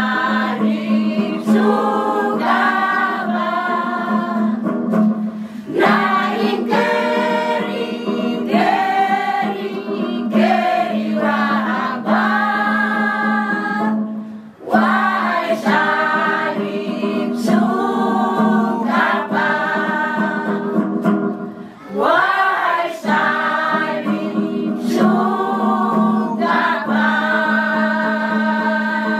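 Elderly church choir singing a hymn in the Klamu language, mostly women's voices, with a steady low note held underneath the melody. The singing dips briefly twice between phrases, about halfway through and again about three-quarters through.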